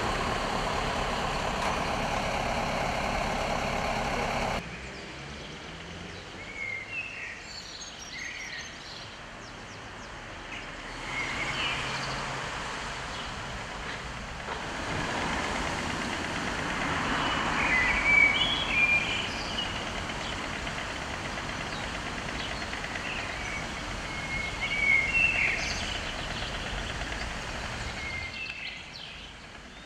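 A truck engine running steadily, which stops suddenly after about four and a half seconds. Then comes outdoor town ambience with traffic noise swelling and fading and small birds chirping now and then.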